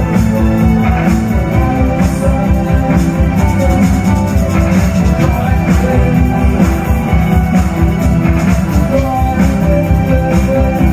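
Live darkwave rock band playing loud through the venue's PA: electric guitar, bass and synthesizer over a fast, steady pulsing beat.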